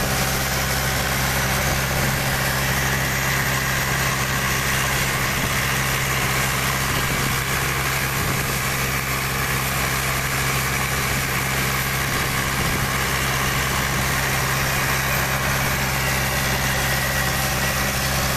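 Fishing boat's inboard diesel engine running steadily under way, a constant low drone, with the rush of water along the hull.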